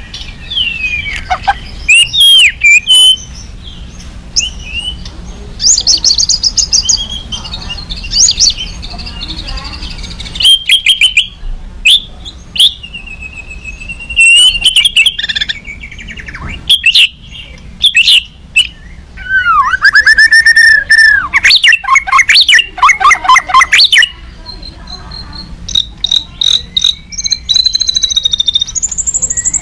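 White-rumped shama singing a loud, varied agitated song of gliding whistles and rapid rattling notes, with a long burst of fast rattles about two-thirds of the way through.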